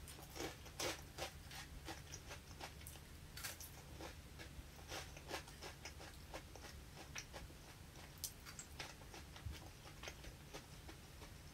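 Faint, irregular crisp clicks of fresh leafy herbs being chewed and of leaves being plucked off their stems by hand.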